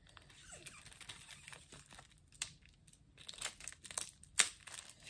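Cellophane wrapper on a deck of playing cards crinkling and tearing as fingers pick it open, in small scattered crackles with sharper ones about two and a half seconds in and near the end.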